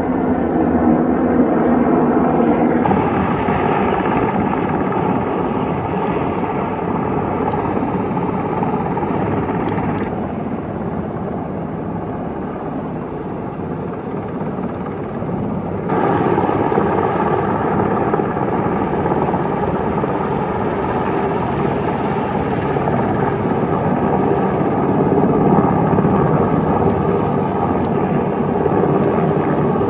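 Sikorsky UH-60 Black Hawk helicopter's twin-turbine engines and rotors running while it hovers with a chairlift tower section slung on a long line. It is a steady, loud rotor and turbine noise that changes abruptly in level and tone about 3, 10 and 16 seconds in.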